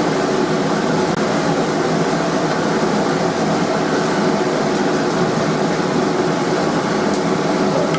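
Steady rushing noise of a blacksmith's forge running, even and unbroken, with no hammer blows.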